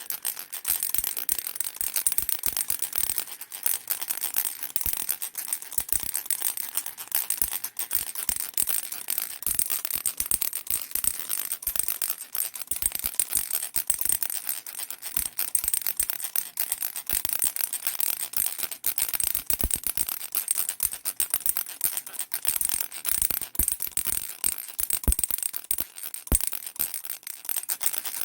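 Baby rattle being shaken without pause, a dense, high-pitched rattling.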